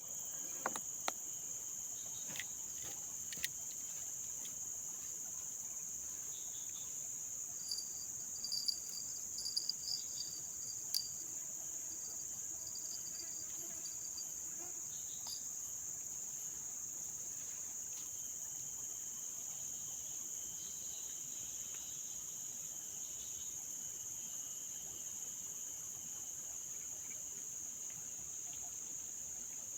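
Steady high-pitched drone of a jungle insect chorus, crickets or cicadas, unbroken throughout. A few sharp clicks sound in the first few seconds, and a brief run of chirping calls comes about eight to eleven seconds in.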